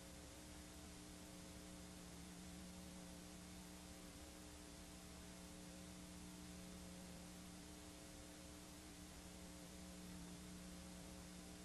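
Faint, steady hiss with a low hum from a blank stretch of videotape played back after the recorded programme has ended.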